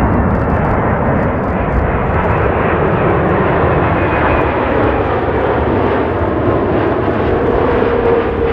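Air New Zealand Boeing 787-9 on final approach, its Rolls-Royce Trent 1000 engines and airframe making a loud, steady jet rush, with a faint whine coming in near the end.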